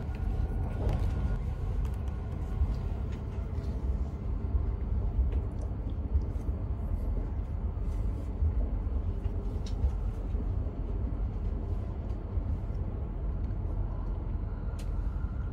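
Tohoku Shinkansen bullet train running, heard from inside the passenger cabin as a steady low rumble.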